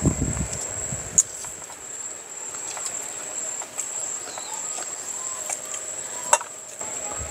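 A steady high-pitched insect trill runs under eating sounds: fingers working rice on plates, chewing, and a few sharp clicks of dishes, two louder ones about a second in and about six seconds in.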